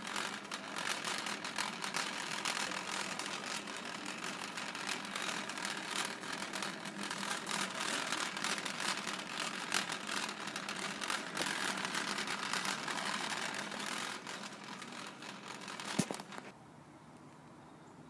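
Wire shopping cart rolling over a hard store floor, its metal frame and wheels rattling steadily. The rattle ends with a sharp knock near the end.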